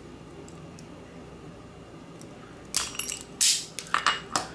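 A burst of hard metallic clinks and clatter starting about three seconds in: a metal wire stripper being handled and set down on a granite countertop.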